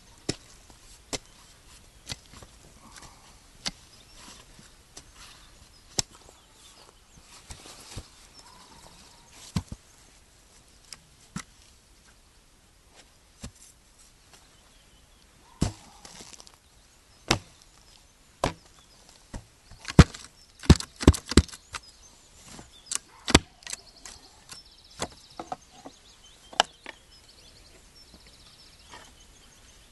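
Steel spade digging by hand: a series of irregular sharp strikes and scrapes as the blade cuts into the soil and clods are thrown, with a quick flurry of strokes about two-thirds of the way through.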